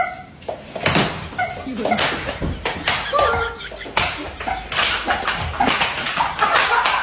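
Rubber screaming chickens squawking, mixed with repeated sharp slaps and thuds.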